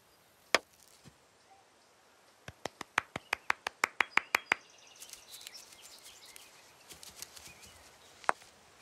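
Sharp wooden knocks and clicks from a croquet game: one hard knock, then a quick run of about a dozen clicking taps, then fainter taps and one last sharp knock near the end.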